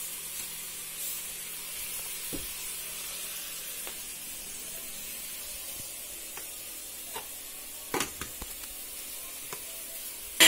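Steady sizzling hiss of food cooking in a pot on a gas stove, with a few light knocks and clicks from handling kitchenware, the loudest a double knock about eight seconds in.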